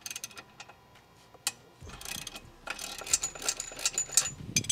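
Socket ratchet wrench clicking as it loosens a nut, with a few single clicks at first and a quick run of clicks in the last couple of seconds. The nut is being loosened to give slack to a drive chain that is too tight.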